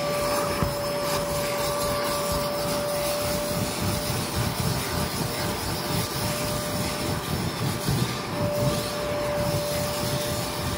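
Kärcher carpet-cleaning vacuum running with a steady whine, its nozzle rubbing and scrubbing across the carpet.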